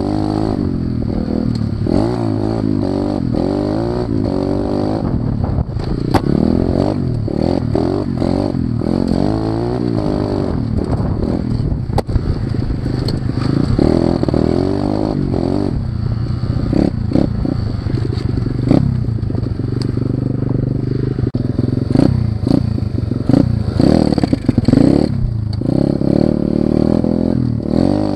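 Orion AGB29 125cc pit bike's single-cylinder four-stroke engine being ridden, revving up and falling back again and again, with knocks and clatter from the bike over rough ground. The choke is still on, which the uploader blames for how the engine sounds.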